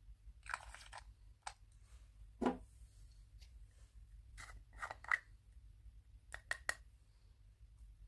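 Small plastic topping jars handled and tipped by hand: scattered light clicks and taps, with a short rustle about half a second in, a louder knock about two and a half seconds in, and a quick run of three clicks near the end.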